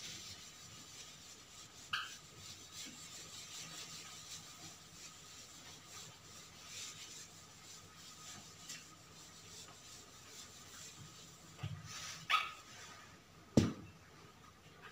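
Quiet room tone with a faint steady hum, a few brief faint sounds about two seconds in and near the end, and a sharp knock just before the end.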